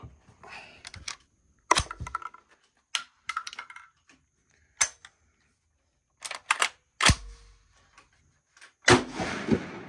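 Sharp metallic clicks and clacks from the action of a Tokarev TBP-12 12-gauge bullpup shotgun being worked by hand, about a dozen separate strokes, as a shell that hung up on feeding is cleared. A louder, rougher burst of noise comes near the end.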